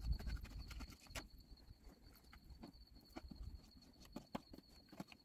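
Faint, irregular knife taps and scrapes on a plastic cutting board as a fish fillet is cut into pieces, over a steady high-pitched cricket trill.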